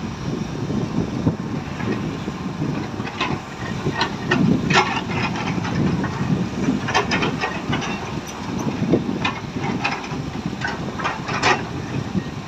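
Excavator's diesel engine running under load, a steady low rumble, with scattered irregular knocks and clatters throughout.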